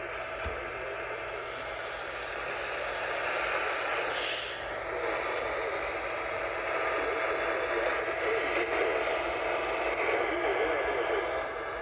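Steady hiss of radio static on a receiver, with no program audio coming through.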